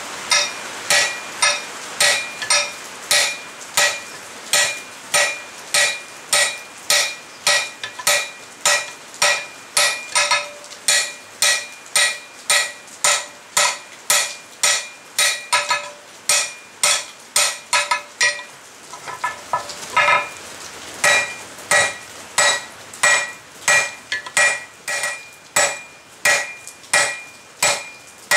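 Hand hammer striking red-hot flat bar on an anvil, about two blows a second, each with a metallic ring from the anvil. This is the jaw and boss of bolt jaw tongs being forged. About two-thirds of the way through, a couple of seconds of lighter taps break the rhythm before the full blows resume.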